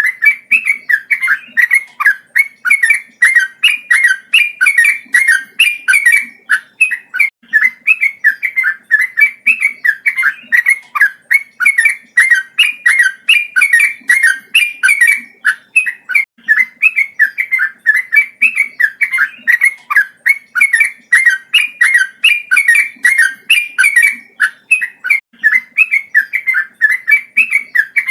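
Male yellow-vented bulbul singing a long, unbroken run of rapid chattering phrases, about two to three a second without a pause.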